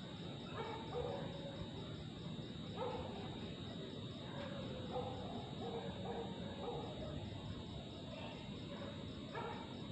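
Night ambience: a steady high insect drone with a faint pulsing chirr above it, and distant dogs barking on and off.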